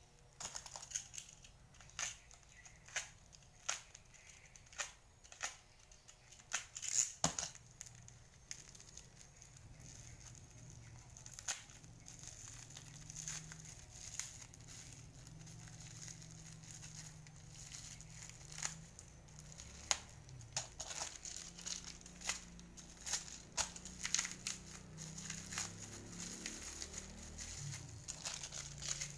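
Plastic wrap and packing tape crinkling, crackling and tearing as they are picked and peeled off a seedling's plastic-wrapped root ball by hand, in irregular sharp crackles.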